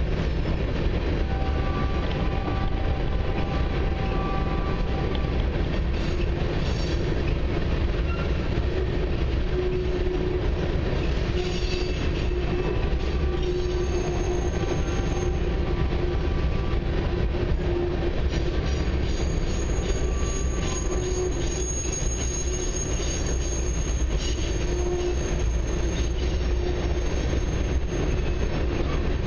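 Freight train of covered hopper cars rolling past: a steady rumble and rattle of wheels on rail, with a thin high-pitched wheel squeal coming and going, longest in the second half.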